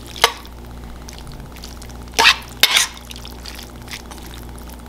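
Large metal spoon scooping and scraping through ground beef with green beans in a stainless steel pan: one short scrape just after the start, then two more a little past two seconds in.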